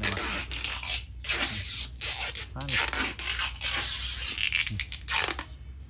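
Rough rubbing and scraping in repeated strokes about a second apart, fading out near the end, over a low steady hum.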